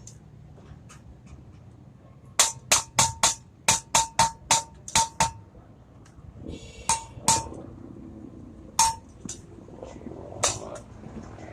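Hammer blows on metal, each with a short metallic ring: a quick run of about ten strikes, roughly three a second, then four more spaced out.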